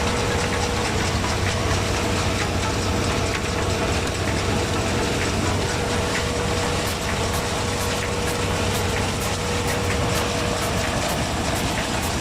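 Claas combine harvester running, a steady mechanical clatter over a low engine drone with a constant whine; from about halfway a regular ticking comes in at about three a second.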